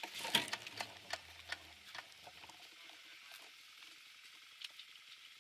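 Handling noise on a bike camera: a quick run of light clicks and rustles over the first two seconds, then a few faint scattered ticks.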